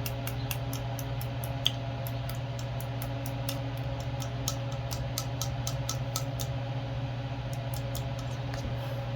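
Rapid light clicking, about four clicks a second, as a small carburetor's float is worked up and down against its needle valve to test it. The clicking pauses briefly and stops near the end, over a steady motor hum.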